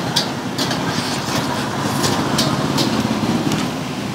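An engine running steadily in the background, a low rumble with a fast even pulse, with light sharp clicks every half second or so.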